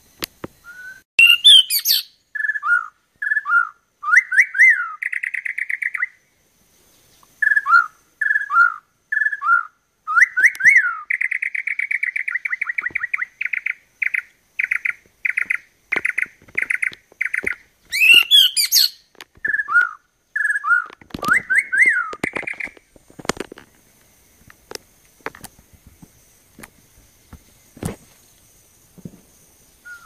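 White-rumped shama (murai batu) singing: loud whistled phrases of sliding notes repeated several times, a fast run of repeated notes in the middle, and two harsh rasping notes. The song stops about three-quarters of the way through, leaving a few scattered clicks and taps.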